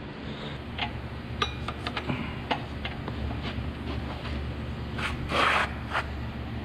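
Scattered light clinks and knocks of hand tools and engine parts being handled, with a short scraping rub about five seconds in, over a low steady hum.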